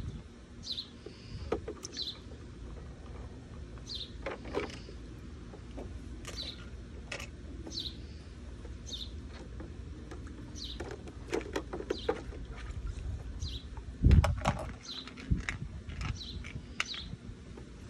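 A bird chirping over and over, a short high note about once a second, over scattered splashes and clatter of plastic toys in and around a toy water table, with a louder thump about two-thirds of the way through.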